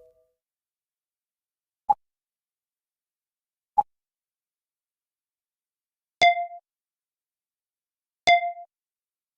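Computer sound effects played one after another with silence between them: two very short, single-pitch pops about two seconds apart, then two short chiming dings of several tones each, again about two seconds apart.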